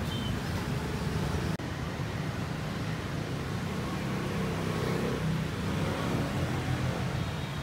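City street ambience dominated by a steady low rumble of passing road traffic, with a brief break about one and a half seconds in.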